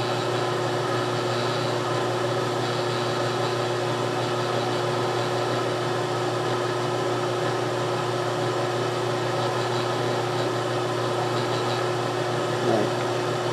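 Benchtop milling machine's spindle motor running with a steady hum while a small center drill spots a hole in a brass steam-engine cylinder.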